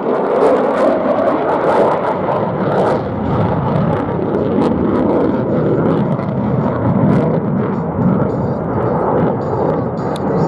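Jet noise from the F-35A Lightning II's Pratt & Whitney F135 engine in flight: a loud, steady rush that swells and eases slightly but never breaks.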